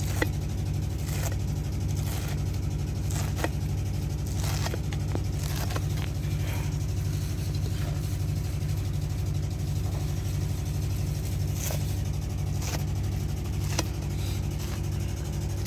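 An engine running steadily with an even low throb, with scattered light clicks and knocks over it.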